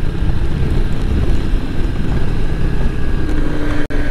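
Wind rushing over the microphone of a moving Honda CRF300L Rally dual-sport motorcycle, with its single-cylinder engine running under the wind noise on a wet road. The sound cuts out for an instant near the end.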